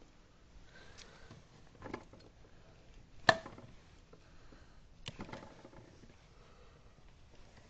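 A few sharp knocks and clunks in a small room, the loudest about three seconds in.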